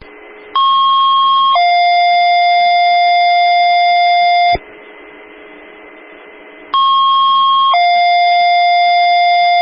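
Two-tone sequential paging alert of a fire dispatch radio channel heard through a scanner: a higher tone for about a second steps down to a lower tone held about three seconds. The alert is sent twice, with open-channel radio hiss between, and signals an alarm dispatch for mutual-aid companies.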